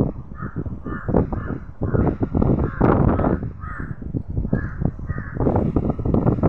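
A bird giving a string of short calls, about one every half second to a second, over loud low rumbling noise with scattered knocks.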